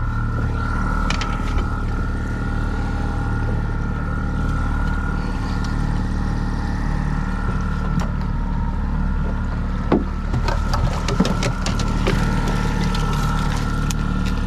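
Boat engine running steadily at trolling speed, with a cluster of sharp knocks and clicks about ten seconds in.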